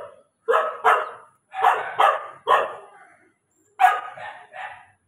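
A dog barking repeatedly: about nine short, sharp barks, several coming in quick pairs.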